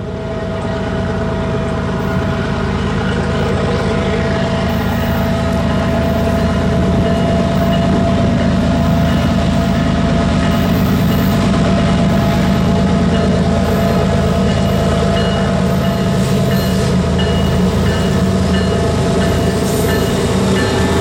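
Diesel-hauled freight train approaching and passing, led by a GE ES44AC locomotive with a BNSF C44-9W behind it, their engines running under power. The sound builds over the first several seconds as the lead unit draws near, then holds steady and loud.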